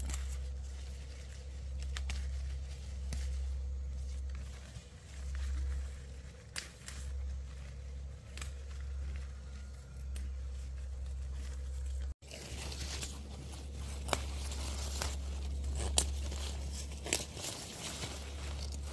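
Vegetables being picked and handled by hand: scattered sharp snaps, tears and crinkles of stems and leaves over a steady low rumble.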